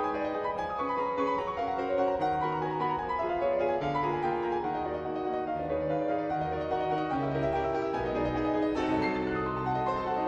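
Background instrumental music: piano playing a melody over chords.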